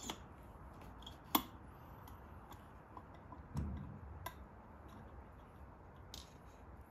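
Faint small clicks and taps of metal parts as a jet needle is worked down into a Keihin FCR carburetor's throttle slide, hunting for the emulsion tube, with one sharper click about a second and a half in.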